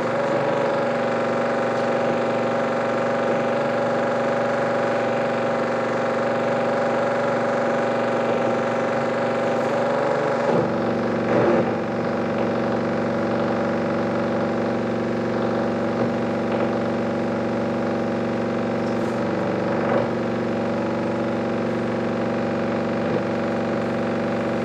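A steady buzzing drone of many layered tones from the 16mm projector's optical sound, reading the hand-scratched and taped film. Its low tones change about ten seconds in.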